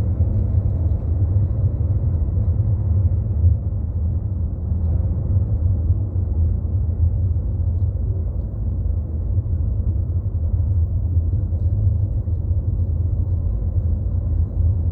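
Sea waves roaring on a beach, heard as a steady low rumble with wind buffeting the microphone.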